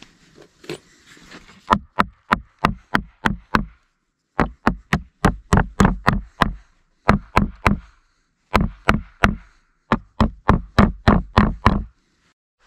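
Hammer driving nails into wooden boards: several quick runs of five to eight sharp blows, about four a second, with short pauses between runs.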